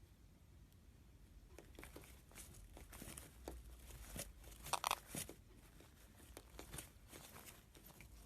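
Light crinkling and crackling, a string of small irregular crackles that starts about a second and a half in and is loudest about five seconds in.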